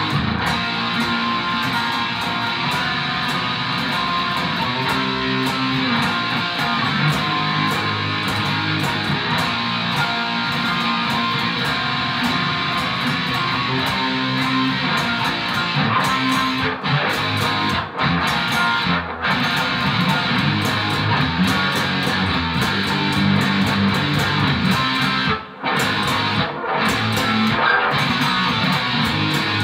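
Electric guitar, an Ibanez RG550 through a Peavey Renown 400 amplifier, playing a rock guitar part with continuous chords and riffs, broken by a few brief pauses in the second half.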